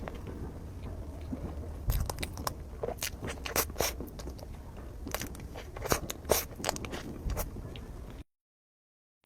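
Close-miked chewing of chocolate lava mille crepe cake: wet clicks and smacks in clusters over a low hum. The sound then cuts to dead silence for about the last second.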